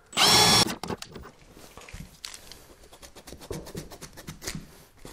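A cordless drill runs in one short burst of about half a second, its whine rising as it starts and falling as it stops, while pre-drilling a pilot hole in a wooden board so that the board does not split. Scattered light clicks and rustling of handling follow.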